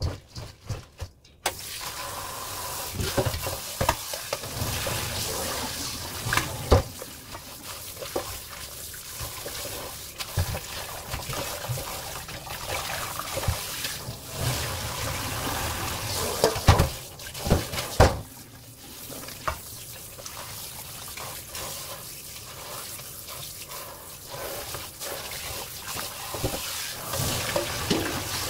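Tap water running into a stainless steel colander while hijiki seaweed is rubbed and rinsed in it by hand. The water comes on suddenly about a second and a half in, with a few sharp knocks of the metal colander along the way.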